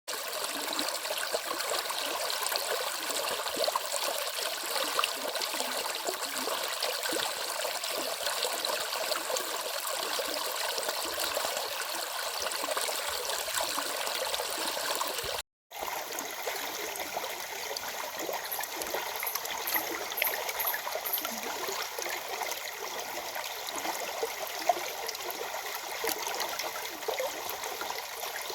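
A small forest stream flowing steadily over rocks, an even splashing rush of water. The recording breaks off for a moment about halfway through and then carries on.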